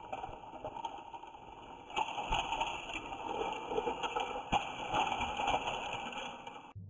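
Motorised plastic toy trains whirring as their battery motors run, with knocks and clatter as the engines topple off the track and land on carpet. The whirring stops suddenly near the end.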